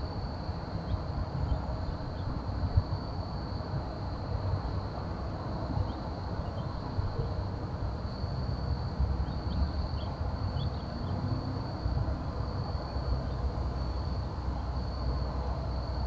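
Outdoor night ambience: a steady high-pitched insect trill over a low, continuous background rumble, with a few faint short chirps scattered through.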